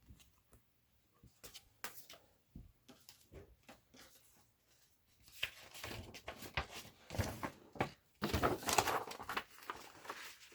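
Paper album inserts being handled: light taps and clicks at first, then louder rustling and crinkling from about five and a half seconds in as a folded paper poster is taken out and opened.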